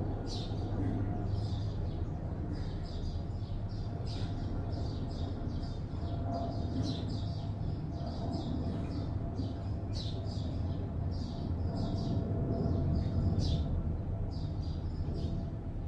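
Small birds chirping continually, short high chirps several times a second, over a steady low hum of city traffic.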